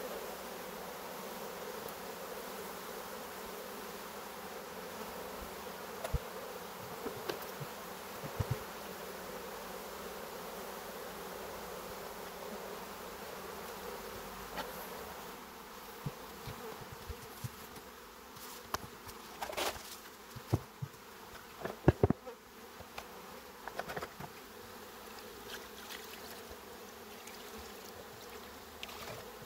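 Honeybee colony buzzing in an opened hive, a steady hum. In the second half the hum thins and scattered clicks and knocks break in, a few of them louder.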